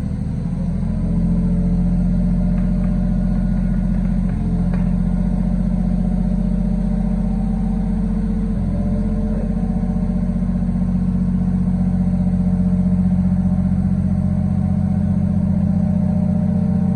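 Engine of a propane-fuelled lift running steadily, a little louder about a second in.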